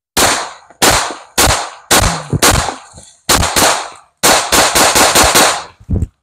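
Semi-automatic .22 LR pistol, a Taurus TX22 Compact, fired in a string of about fifteen shots, each a sharp crack with a short echo. The first shots come about two a second, then a faster run of shots near the end.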